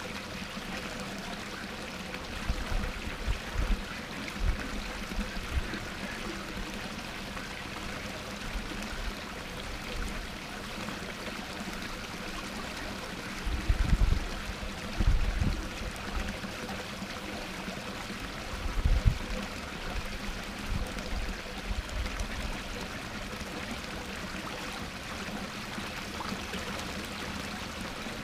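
Small garden waterfall pouring steadily over rocks into a backyard pond, a constant splashing hiss. A few brief low rumbles break in, the loudest about halfway through and again a few seconds later.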